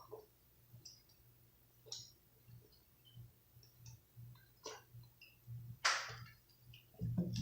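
Quiet scattered mouth clicks and small ticks from a person straining after drinking a large amount of soda, with one short sharp breath about six seconds in and a low throaty sound near the end.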